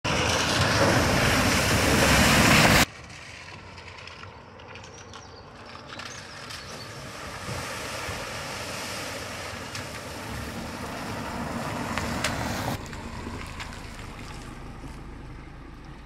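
Cars driving through a shallow flooded ford, their tyres throwing up water spray. A loud rushing splash cuts off abruptly about three seconds in. A second car's splashing then swells gradually and cuts off again near the end, leaving a quieter steady rush of water.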